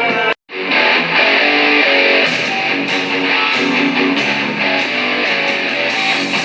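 Instrumental stretch of a song with strummed guitar. It cuts out to silence for a split second about half a second in, then carries on.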